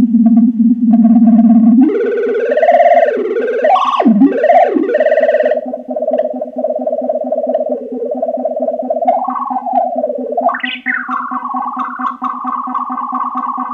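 Behringer MonoPoly analog synthesizer sounding a held low drone while a knob is turned, so that a second tone sweeps and wobbles up and down in pitch. About eleven seconds in, that tone glides up and settles on a steady higher pitch over the drone.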